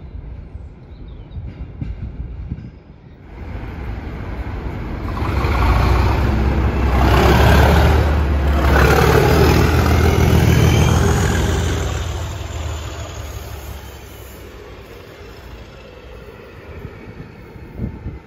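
HNRail Class 37 diesel locomotive 37405, with its English Electric V12 engine, passing close by, loud and low, heaviest about six to eleven seconds in. It fades into the rolling of its train of tank wagons. A faint distant rumble comes first.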